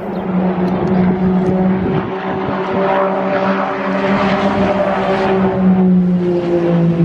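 A steady engine drone, sinking slightly in pitch near the end, with a rushing noise that swells in the middle.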